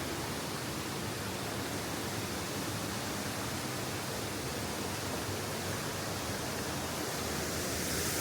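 Waterfall rushing steadily, a constant even wash of water noise that grows slightly louder near the end.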